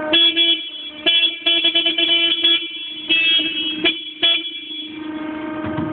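Horn of a small industrial tow tractor honked over and over, in short toots and longer blasts, for the first four and a half seconds, over a steady whine from the vehicle.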